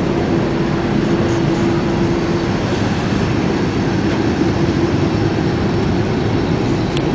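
Steady cabin noise inside an Airbus A380 economy cabin, with a steady hum that stops about two and a half seconds in.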